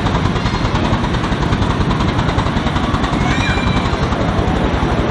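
A 10¼-inch gauge 4-4-2 miniature steam locomotive working towards the listener, its exhaust beating in a fast, even rhythm. A brief high chirp about three seconds in.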